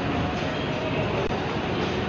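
Escalator running with a steady mechanical noise, heard over the busy hubbub of an indoor mall.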